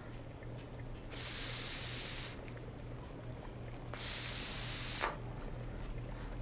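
A woman taking two long, heavy breaths, each lasting about a second and about three seconds apart, over a low steady hum.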